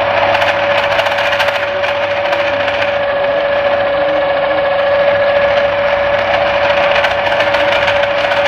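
Electric noodle machine running with a steady, unchanging hum from its roller motor as a sheet of noodle dough is fed through the rollers on the first rolling pass.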